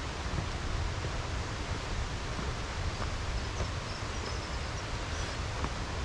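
Steady rushing outdoor noise, strongest as a fluttering low rumble, with no single event standing out.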